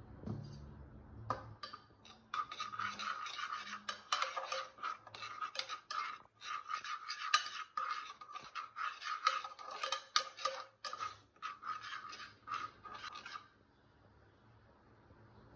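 Perforated steel ladle scraping and clinking against the bottom of an aluminium pressure cooker, in quick irregular stirring strokes, as chilli powder is stirred into hot oil. The stirring starts about a second in and stops shortly before the end.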